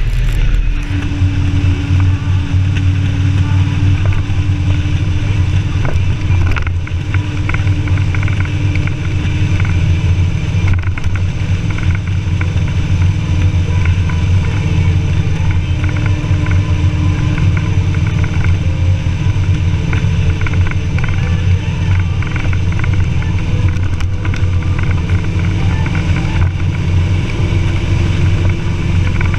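Sidecar motorcycle running steadily at cruising speed, its engine mixed with heavy wind rumble on the bike-mounted microphone.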